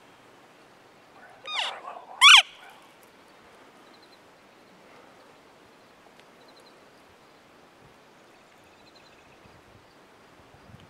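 Bull elk bugling in the rut: about a second in, a rising squeal breaks into a loud, high whistle that drops off sharply, the whole call lasting about a second and a half.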